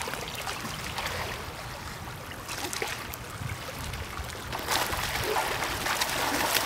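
Sea water splashing and lapping around snorkellers wading in the shallows, with small crisp splashes throughout that get louder about five seconds in as one of them ducks under the surface.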